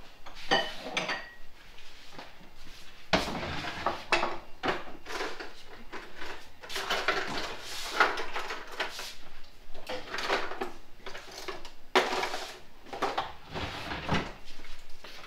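Crockery, glass cups and cutlery clinking and knocking as they are taken from cupboards and set down on a wooden table: irregular clinks and knocks with short clatters.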